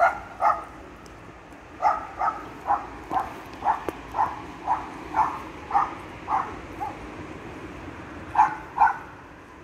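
A dog barking repeatedly in short runs: two barks at the start, a run of about a dozen barks, then two more near the end.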